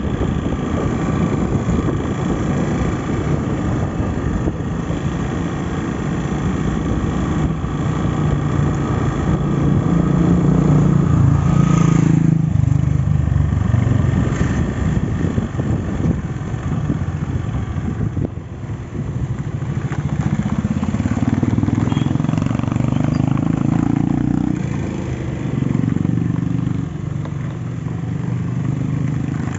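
A vehicle engine running steadily, its pitch and level rising and falling a few times, with a brief dip in the middle.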